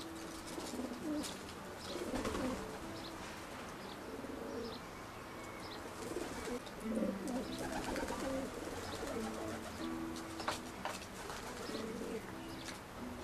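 Pigeons cooing in short, low, repeated notes, with faint high chirps of small birds and a few sharp clicks, the loudest about ten and a half seconds in.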